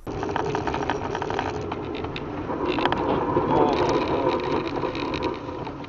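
Car driving on a snowy, slushy road, heard from inside the cabin: steady road and tyre noise with the engine underneath, dotted with scattered clicks and crackles.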